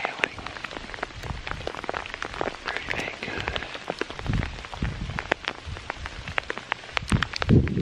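Rain pattering close to the microphone: many irregular sharp taps throughout. Low rumbling thumps come about four seconds in and again, loudest, near the end.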